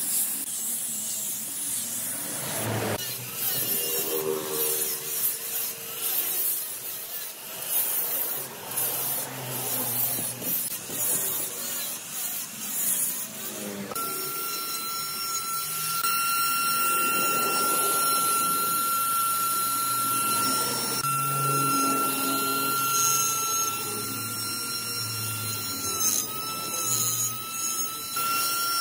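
Angle grinder with a sanding disc sanding a wooden stump tabletop, a rough, uneven rasp. About halfway through it gives way to a straight die grinder running with a steady high whine as its burr carves the wood, the pitch dipping briefly under load near the end.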